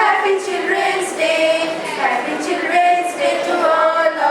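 A woman singing a melody, holding notes in a steady, sung line.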